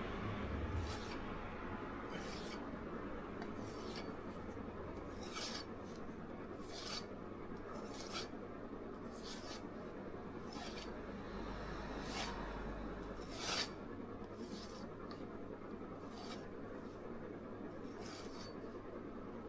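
Victorinox santoku blade being stropped on a strop loaded with 3-micron diamond paste: a steady soft rubbing, with a sharper scrape every second or two.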